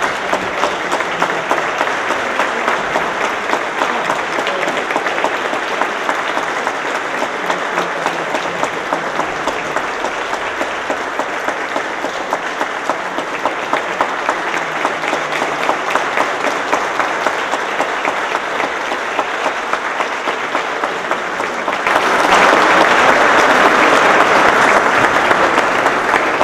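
Applause from a large audience: many hands clapping steadily, growing louder about three-quarters of the way through.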